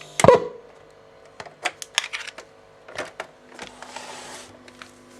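Mechanical clicks and knocks from handling a Sharp GF-9191 boombox: one loud knock with a short ring near the start, then a run of sharp clicks, a brief hiss about midway, and a faint steady hum underneath.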